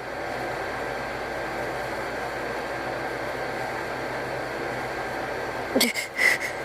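Steady background hiss, then near the end a short run of sharp, gasping inhales, the first rising in pitch: a sneeze build-up catching without a sneeze.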